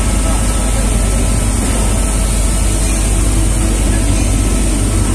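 75 kW Artes permanent-magnet air compressor running steadily on its replacement frequency inverter, holding a constant 6.6 kg pressure: a loud, even low hum with a high hiss over it.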